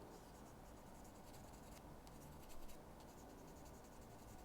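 Faint, quick scratching strokes of a plastic model-kit part being smoothed with a hobby abrasive tool, cleaning up mold lines and edges.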